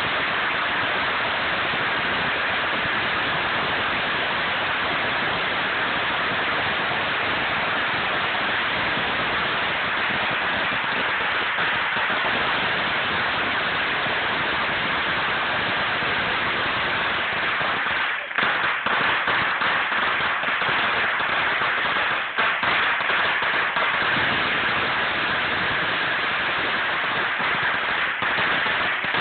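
A huge string of firecrackers going off in an unbroken, dense crackle. There are brief dips about two-thirds of the way in, each followed by a slightly louder stretch.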